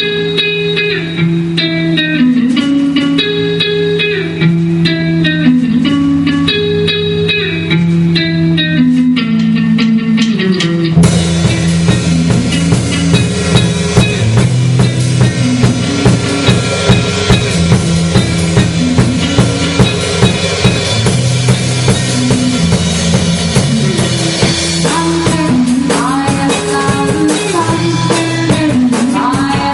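A rock band rehearsing an instrumental passage: a guitar riff over a held bass note, then the drum kit and full band come in suddenly about a third of the way through, with cymbals and a steady beat, growing denser near the end.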